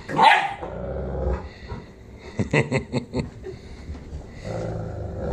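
Cane Corso dogs, an adult and a puppy, growling in a tug-of-war over a pair of jeans. A low growl runs through the first second or so, broken by a loud short cry about a quarter second in. A quick run of about six short sharp sounds comes around the middle, and the low growl comes back near the end.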